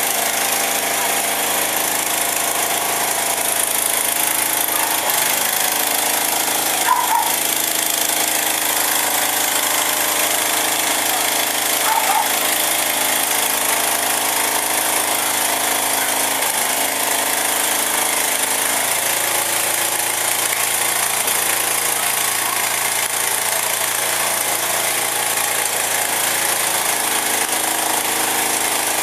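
A fire truck's engine running steadily, with a constant high hiss over it.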